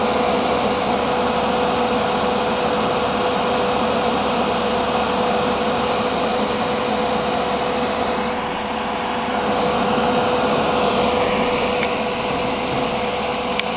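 Nidec server fan running at speed, drawing air through a kitchen-hood filter pad: a steady rush of air with a constant humming tone. The sound dips slightly for a moment about eight seconds in.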